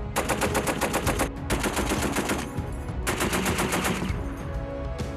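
M2 Browning .50-calibre heavy machine gun firing three bursts of about a second each, at roughly eight shots a second.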